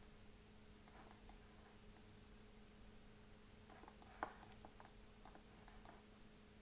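Faint, scattered clicks of a computer mouse and keyboard over a low steady hum, with a quick run of clicks about four seconds in.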